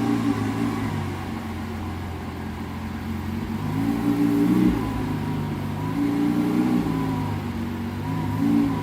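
Lamborghini Aventador's V12 engine idling, with three short throttle blips that briefly raise its pitch: about four seconds in, about six seconds in, and near the end.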